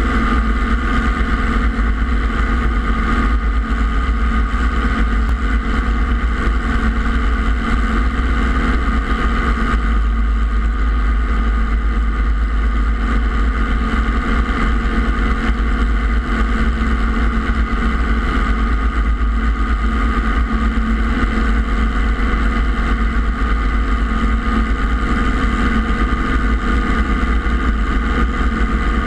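Robinson R22 helicopter's piston engine and two-blade main rotor running steadily at flight speed while hover-taxiing, heard from a camera mounted on the outside of the airframe. The sound is loud and unchanging, with a deep rotor and engine drone and a steady whine above it.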